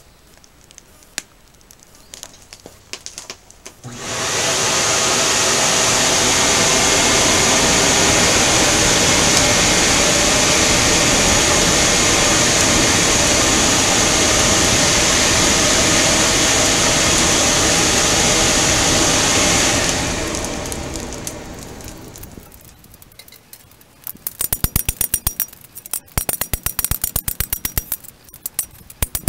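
Air blower forcing air into a wood-fired forge: a steady loud rushing noise with a high whine that cuts in about four seconds in and fades out after about twenty seconds. Near the end, a quick run of hammer blows on a steel lawnmower blade on an anvil.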